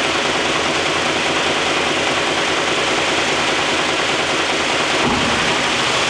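Timesaver 2200 Series wide-belt grinder running loud and steady, its dual-speed belt drive motor kicking over from low speed (15 hp) to high speed (30 hp). The change comes as a short low rumble about five seconds in.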